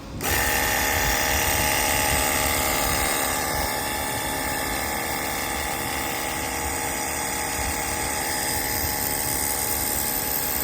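Cordless battery-powered pressure washer running, its electric motor and pump giving a steady whine with hiss. It starts just after the beginning and eases slightly in level a few seconds in.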